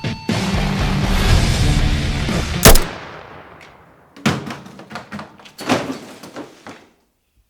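Dramatic soundtrack music cut off by a single loud gunshot that rings out and fades. A few scattered thuds follow, then silence.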